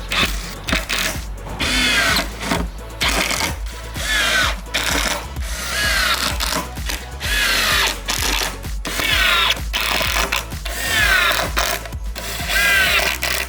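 Power drill running in a series of short bursts, its motor pitch dropping during each one as it works into the wood of the box.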